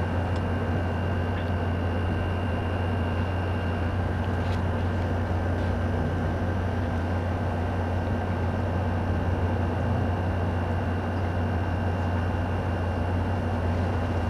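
A steady low machine hum with an even rushing noise, unchanging throughout, like a room fan or air-conditioning unit running.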